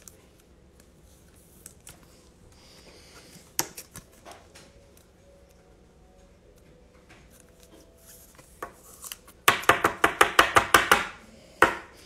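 A hard plastic trading-card holder being handled, with a few light clicks. Then comes a fast run of about a dozen sharp plastic taps lasting over a second, and one more tap just after.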